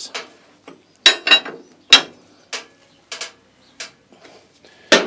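Hand tools clicking and clanking on a motorcycle's rear axle as the axle nut is nipped up after a chain adjustment: about seven sharp, irregular metallic clicks, some with a short ring.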